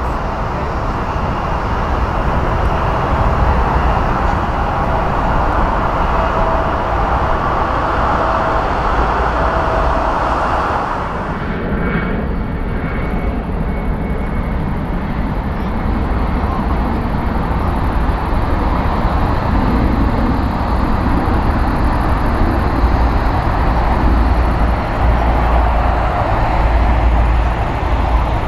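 Jet airliner engines at take-off thrust as the aircraft climbs away, with a faint steady whine that ends about ten seconds in. Then the sound changes abruptly to the broad rumble of a Bombardier CRJ regional jet's two rear-mounted engines as it rolls along the runway, growing louder toward the end.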